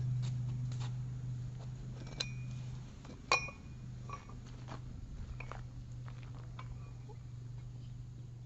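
A steady low hum with scattered light clicks, and two short metallic clinks about two and three seconds in, the second the loudest.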